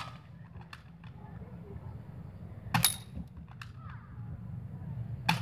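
Spring-powered airsoft AK-47 (Skyma SM1003C) firing two single shots, one about three seconds in and one at the very end, each a sharp snap, with fainter clicks between them.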